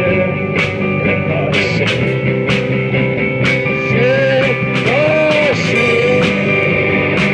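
Live rock band playing: electric guitars, electric bass and drum kit, with a male voice singing a few held notes about four to six seconds in.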